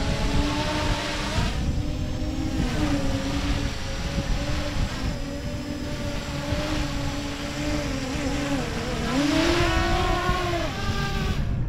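Bait-drop fishing drone's propellers whining steadily, the pitch shifting as the throttle changes and rising briefly near the end, over wind rumble on the microphone.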